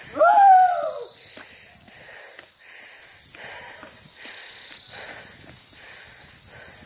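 Insects buzzing steadily in one high band, with a short rising-and-falling call in the first second. Faint regular footsteps on the trail come about twice a second.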